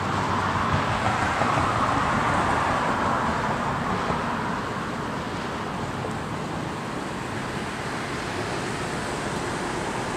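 Road traffic noise: a vehicle going past, loudest in the first few seconds, then a steadier, quieter hum of traffic.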